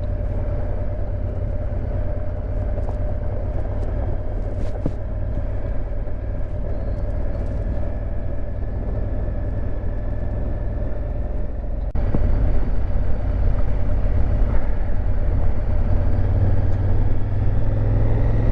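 Honda Africa Twin's parallel-twin engine running steadily under way on a dirt trail, with road noise. The sound steps up suddenly and stays louder about twelve seconds in.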